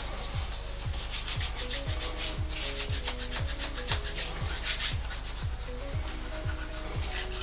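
Hands rubbing briskly together, working in liquid hand sanitizer, in quick scratchy strokes that are loudest in the middle. Under it runs background music with a steady kick-drum beat of about two a second and a synth melody.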